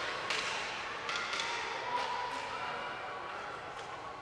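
Distant voices and scattered sharp knocks echoing around a large ice arena.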